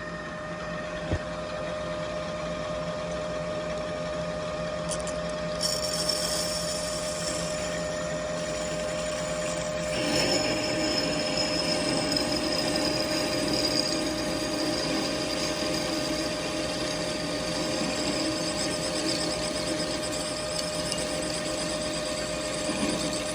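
Metal lathe running while its tool cuts a small steel part. A high whine from the cut joins about six seconds in, and the cutting gets louder about ten seconds in.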